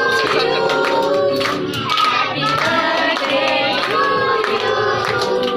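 A group of children and adults singing a birthday song together, with hands clapping along.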